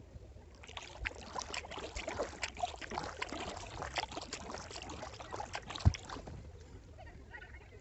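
Kayak paddling: water splashing and trickling off the paddle blades. It starts about half a second in and stops at about six seconds, with one sharp low knock just before the end.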